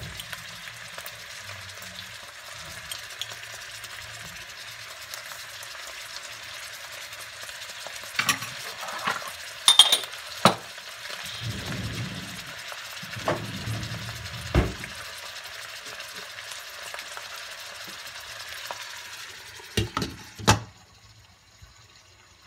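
Frozen green beans sizzling in a stainless steel pot, a steady hiss. There are a few sharp clinks and low knocks in the middle, then a clink of metal and glass near the end as the glass lid goes on, after which the sizzle falls much quieter.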